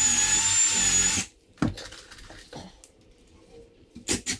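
Cordless drill running at a steady speed for about a second, then stopping. A few light knocks follow, with a quick run of sharper knocks near the end.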